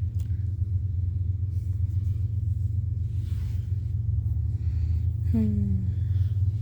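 Steady low rumble of wind buffeting the microphone. About five seconds in there is one short falling voice sound.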